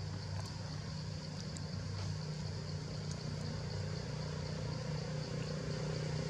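Steady low hum of an engine running, slowly getting a little louder toward the end, with a steady high-pitched drone above it.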